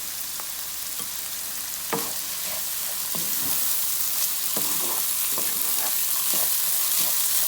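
Soaked basmati rice sizzling in butter and oil in a skillet as it is sautéed, with a utensil scraping and knocking against the pan every second or so as it is stirred. The sizzle grows slightly louder toward the end.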